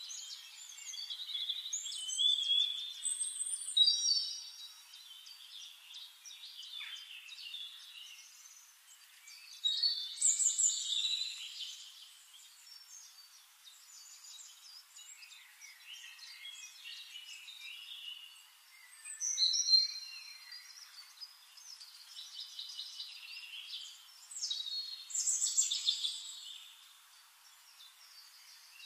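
Birds chirping and singing: short whistles and trills, with louder phrases of song every several seconds.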